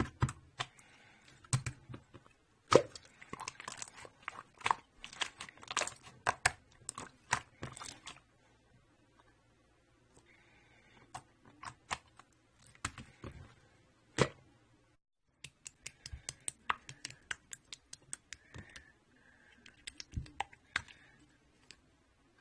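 Irregular sharp clicks and short crinkly, crackling rustles close to the microphone, like something being handled or tapped, busiest in two spells with a pause of a few seconds in the middle.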